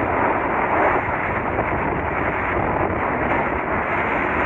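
Strong storm wind from an approaching hurricane blowing across the microphone: a steady, dense rush of noise.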